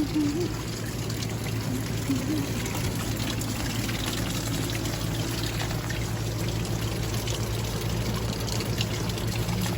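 Rainwater pouring and trickling in a steady, even wash.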